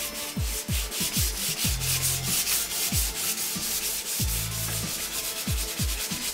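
500-grit sandpaper on a rubber sanding block rubbed by hand in quick back-and-forth strokes over a sealer-coated metal panel, a steady scratchy rasp that smooths the sealer coat before the base coat.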